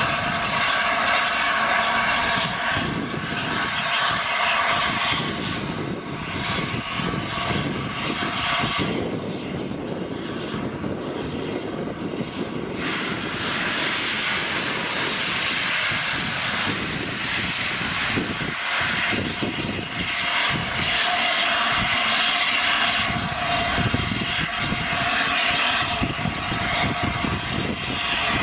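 A train running, a steady rushing roar that thins out for a few seconds midway and then swells again.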